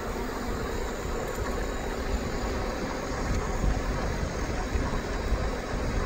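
Wind buffeting the phone's microphone while it moves quickly along a paved trail: a steady, gusty low rumble under an even hiss.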